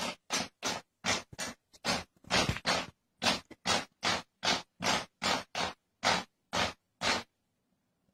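A cat pawing over and over in short scratchy swipes, its claws raking a hard surface, nearly three strokes a second. The strokes stop about seven seconds in.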